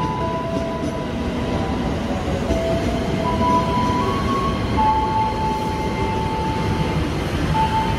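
A KRL Commuter Line electric multiple unit runs past the platform with a steady rumble and clatter of its wheels on the rails. A melody of long, steady notes plays over it.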